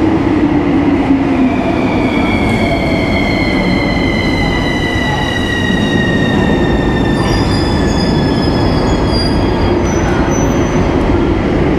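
Metro train pulling into an underground station: a loud rumble of wheels on the rails, with a whine that slowly falls in pitch as the train slows. High wheel squeals join in about two-thirds of the way through.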